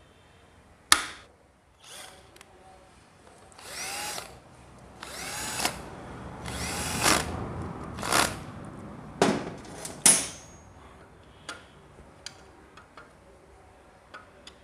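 A handheld power drill whirring in about six short bursts, its pitch rising and falling as it spins up and slows, after a sharp click about a second in; small metallic clicks follow near the end.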